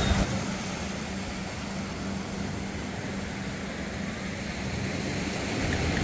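Ocean surf breaking and washing over shore rocks, a steady wash of noise that grows a little louder near the end.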